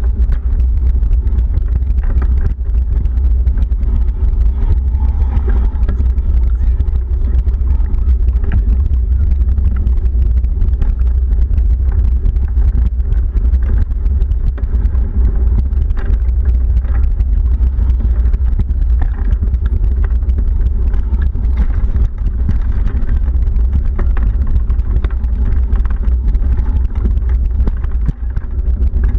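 Steady low rumble of a vehicle in motion, unchanging throughout.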